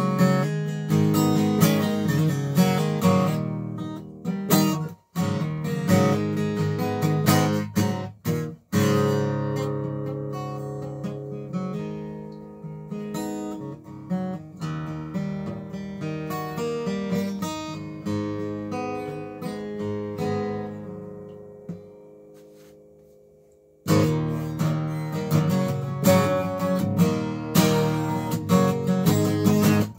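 Solo acoustic guitar played without singing, an improvised mix of picked notes and strummed chords. It stops twice very briefly about five and eight seconds in. Later a chord is left ringing and fades almost to nothing for a few seconds before the playing starts again.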